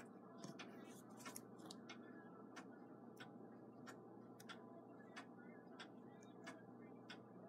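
Faint, steady ticking of a mechanical clock, a tick about every two-thirds of a second.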